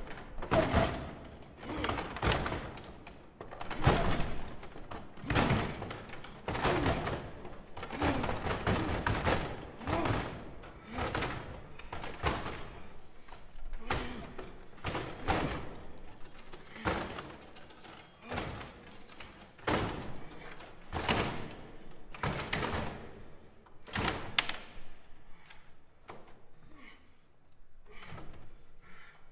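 Foosball table being played hard: a run of knocks and bangs from the rods, players and ball, about one or two a second, each with a short ringing tail. They thin out into lighter ticks over the last few seconds.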